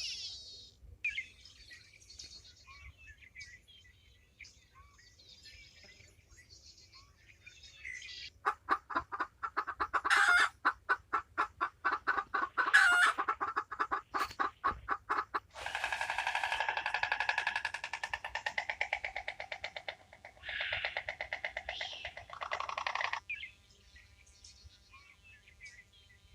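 Chickens calling: faint bird chirps at first, then a fast run of short clucks for several seconds, followed by a long drawn-out pulsing call.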